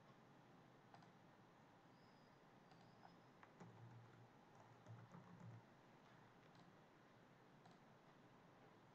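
Very faint computer keyboard typing: a few scattered key clicks over low room hiss.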